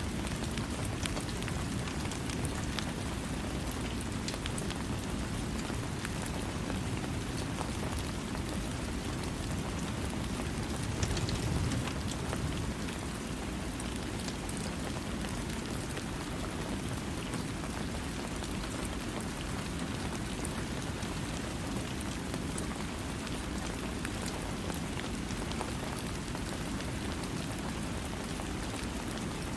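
Steady rain falling, a dense even hiss with many individual drop ticks. It swells briefly a little louder about eleven seconds in.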